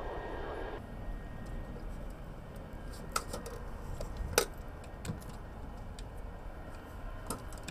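Scattered sharp metallic clicks and knocks from crew climbing onto and working on a parked Mi-24-type attack helicopter with its engines off, over a low steady background. A denser noise fills the first second. The loudest knock comes about four and a half seconds in.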